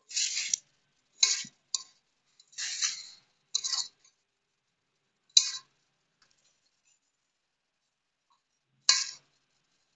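Hands kneading flour dough in a metal pot: short, irregular bursts of scraping and clinking as hands and bangles work against the pot, several in the first four seconds, then two more with a long pause before the last, about nine seconds in.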